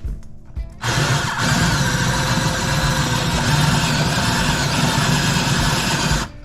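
Electric drill running a countersink bit into a screw hole in aluminum sheet, starting about a second in and running steadily for about five seconds before stopping. The countersink is being cut deeper so the screw head will sit flush.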